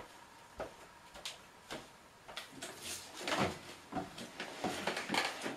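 A person coming up to a desk and sitting down in an office chair: a few footsteps about half a second apart, then a cluster of knocks, scrapes and rustles as the chair is pulled out and sat in.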